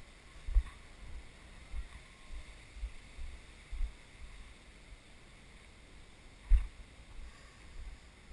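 Footsteps over granite boulders, heard as dull, irregular thumps through a body-worn action camera, about one or two a second. The loudest comes about half a second in and another about six and a half seconds in, over a faint steady hiss.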